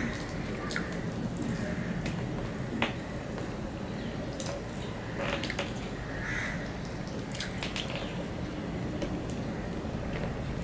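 A person eating fish curry and rice by hand: chewing, with irregular small wet clicks from the mouth and fingers working the food on a steel plate.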